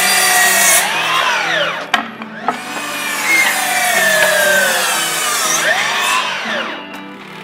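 Milwaukee cordless miter saw cutting wooden boards twice. Each time the blade spins up, cuts through the board, and winds down with a falling whine: once about a second and a half in, and again near the end.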